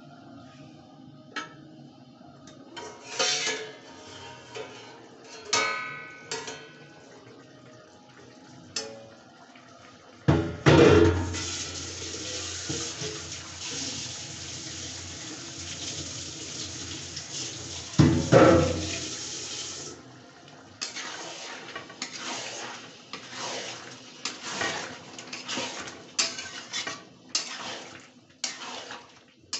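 Chicken curry sizzling in a steel kadai: a steady hiss that starts with a loud clatter about ten seconds in, with another loud clatter a little later, and eases off around twenty seconds. After that a metal spoon scrapes and clinks against the kadai in quick, irregular strokes as the curry is stirred.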